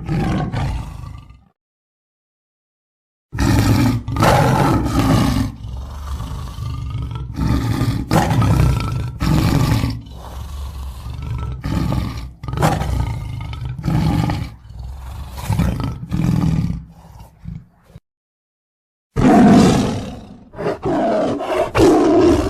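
Lion roaring: several separate takes of roars and shorter grunting calls, each cut off abruptly into dead silence. The longest take is a run of about a dozen repeated calls lasting some fifteen seconds.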